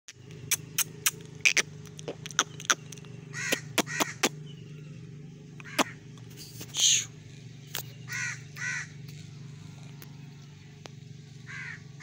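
Sharp clicks of game roosters pecking grain off a concrete floor, followed by short, harsh caw-like calls about once a second, over a steady low hum.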